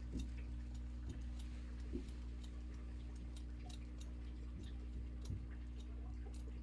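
Barber's scissors snipping in light, quick ticks, about three or four a second, over a steady low hum, with a few soft knocks.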